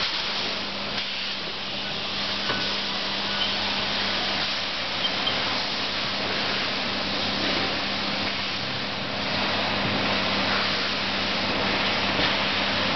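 Steady industrial machinery noise: a constant rushing hiss over an even low hum, with a few faint clicks.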